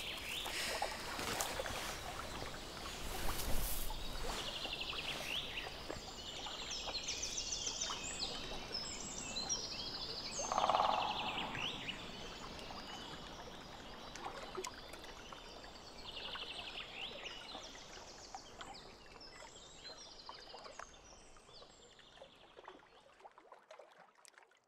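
Nature ambience: many small birds chirping over a soft trickle of water, with one louder, lower call about eleven seconds in. It slowly fades out near the end.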